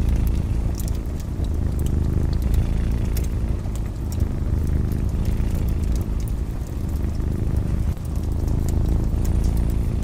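A domestic cat purring close up, a steady low rumble, with the scattered small crackles and pops of a wood fire burning.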